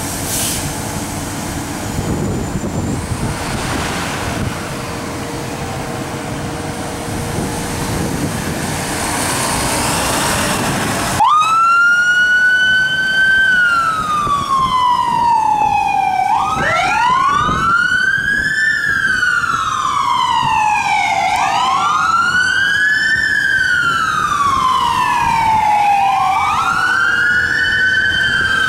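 Fire engine running and pulling away, with no siren. About eleven seconds in, its electronic siren comes on abruptly and wails, rising and falling in slow cycles of about five seconds. A second wailing siren overlaps it from about halfway through.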